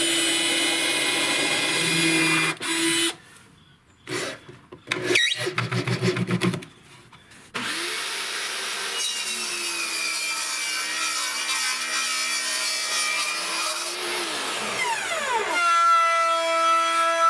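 Power tools working MDF: several short bursts of a power tool in the first seconds, then a power tool running steadily for about seven seconds and winding down in pitch as it stops.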